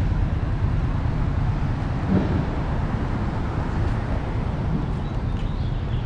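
Street traffic on a city avenue: a steady low rumble of cars and trucks running past.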